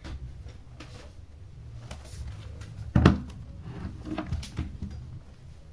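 Handling knocks: one sharp knock about three seconds in, followed by a few lighter clicks, over a low steady room hum. These come from the repaired computer keyboard being moved and set down.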